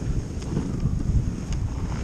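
Wind buffeting the microphone of a camera riding on a moving dog sled: an uneven, rumbling rush with a few faint light ticks.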